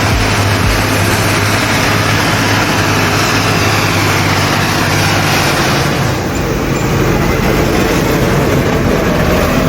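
Diesel tractor engine running steadily, with a loud rushing noise over it; the rushing eases a little about six seconds in.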